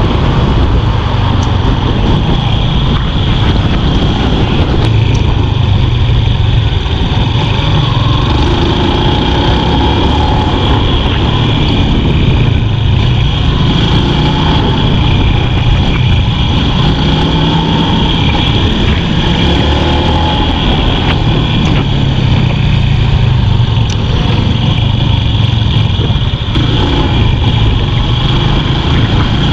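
Motorcycle engine running while riding at road speed, with wind rushing on the microphone; the engine note rises and falls gently as the speed changes.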